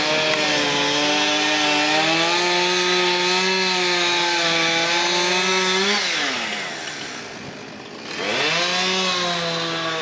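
Chainsaw running at high revs while cutting up a fallen tree. About six seconds in it drops off toward idle, then revs back up about two seconds later.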